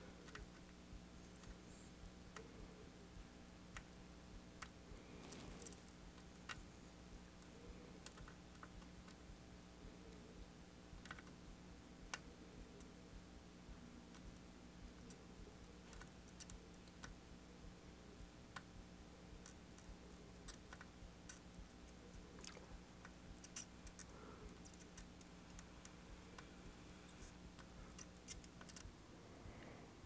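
Near silence: a faint steady hum with scattered, irregular small clicks and ticks. The hum stops about a second before the end.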